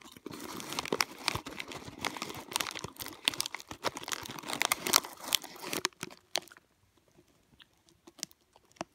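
Crinkling of a crunchy Cheetos snack bag as a hand rummages inside it for another piece: dense crackling for about six seconds, then a few scattered clicks.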